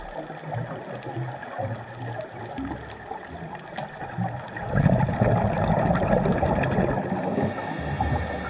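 Underwater audio on a scuba dive: a diver's exhaled bubbles rumble, loudest for a few seconds from about five seconds in, over a steady muffled gurgle of water.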